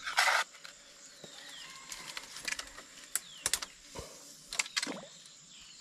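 Splashing and handling noises as a fish trap is pulled up and checked in shallow water: a short louder splash right at the start, then scattered clicks and knocks, over a faint steady high insect hiss.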